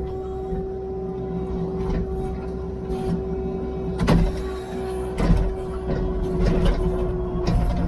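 Diesel engine of working heavy equipment running steadily, with a constant whine over the rumble that drops out near the end, and a couple of clunks and rattles about four and five seconds in.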